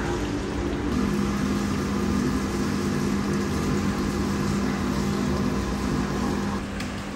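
A machine hums steadily over a noisy kitchen background. It starts about a second in and stops shortly before the end.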